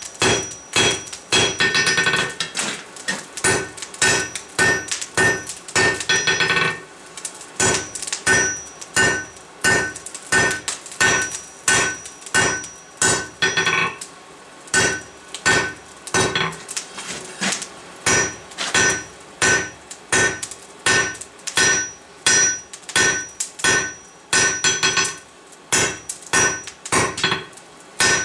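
Blacksmith's hammer striking a hot steel bar on an anvil at about two blows a second, each blow leaving a short metallic ring, with a few quick flurries of faster blows early on. The blows are drawing out and thinning the bar for a campfire poker.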